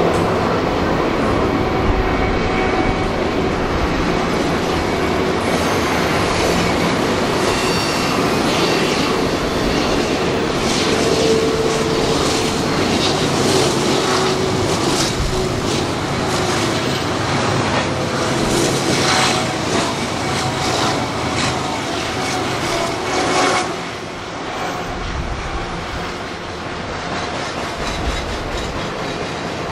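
Railroad cars rolling on the track with rhythmic clacking over rail joints and high steel-wheel squeal. The rolling noise eases off about 24 seconds in.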